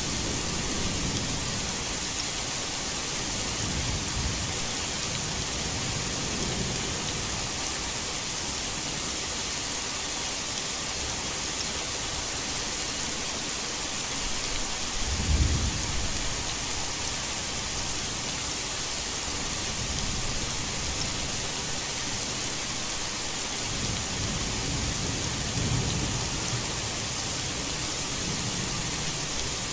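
Heavy rain falling steadily, with low rumbles of thunder several times; the loudest, sharpest thunder comes about halfway through.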